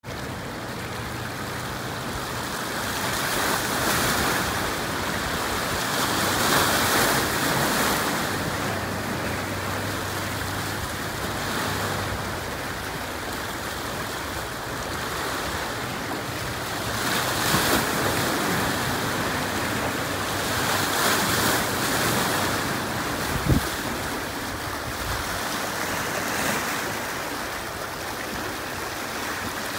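Small waves washing and splashing against rocks, the water noise surging and falling every few seconds. For roughly the first twelve seconds a small fishing raft's engine drones steadily underneath, and there is a single sharp knock about 23 seconds in.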